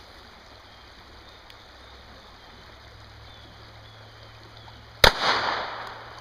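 A single pistol shot about five seconds in: one sharp crack with a tail that dies away over about a second.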